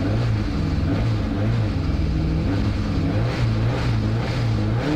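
Rally car engine running at a steady speed, heard from inside the cabin, its pitch wavering slightly without a big rev.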